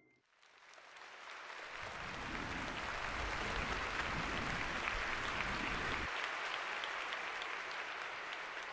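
Applause-like sound effect, a dense crackle of many small claps that swells in after about a second and slowly tapers off near the end.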